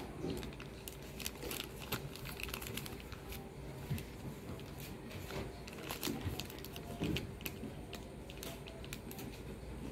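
Clear plastic zip-lock bag crinkling and crackling as it is handled, a scatter of faint, irregular crackles.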